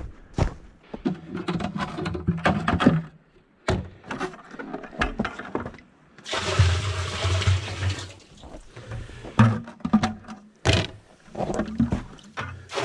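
Maple sap poured from a plastic pail into a plastic barrel: a gushing splash starting about six seconds in and lasting a couple of seconds. Footsteps in wet snow and the knocks of handled pails come before and after it.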